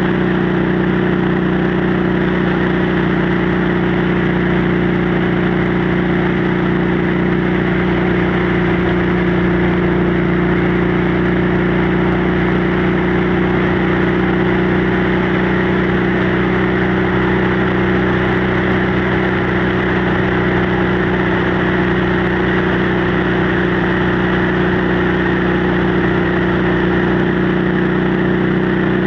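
Motorcycle engine and exhaust running at a steady cruise, holding one even pitch throughout, with wind rushing over the microphone.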